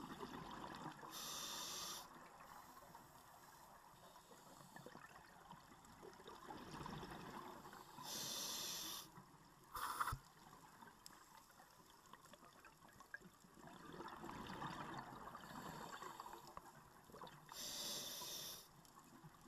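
Scuba diver breathing through a regulator, heard underwater through the GoPro housing. A hissing inhale comes three times, about every eight seconds, with exhaled bubbles rumbling between them. A brief sharp sound comes about halfway through and is the loudest moment.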